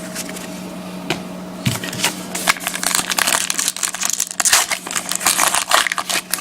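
A trading card pack's wrapper being crinkled and torn open, a dense rapid crackling that starts a couple of seconds in, over a faint steady electrical hum.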